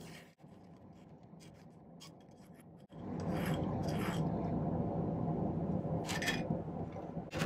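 A hand file rasping across the end of a small silver square-wire bar in a few short strokes, filing it flat. About three seconds in a steady low hum comes up under the strokes.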